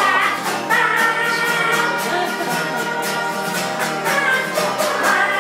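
Acoustic guitar strummed in a steady rhythm under a voice singing long held notes, a live country-style song.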